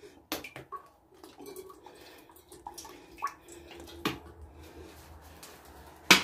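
Vegetable oil trickling in a thin stream from a plastic bottle into a thin-walled enamel pot, with a few small clicks and knocks. A sharp click comes near the end.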